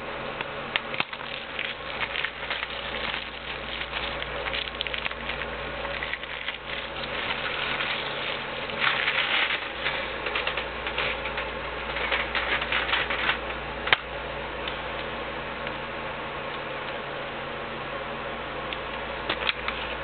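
Cellophane shrink wrap crackling and crinkling in irregular bursts as it is peeled off a plastic Blu-ray case. It is densest about halfway through, with one sharp click about two-thirds of the way in. After that it goes calmer, with a few more clicks near the end as the case is handled.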